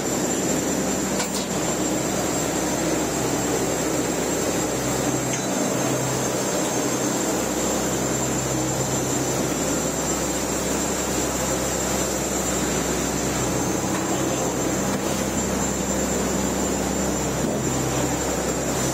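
Fishing boat's engine and deck machinery running steadily: a constant drone with a thin, high whine over it.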